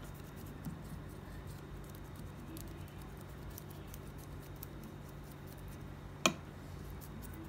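Wet paintbrush brushing and dabbing water over an unbaked clay Ganesha idol to smooth its surface: faint, soft scratchy strokes. One sharp click about six seconds in.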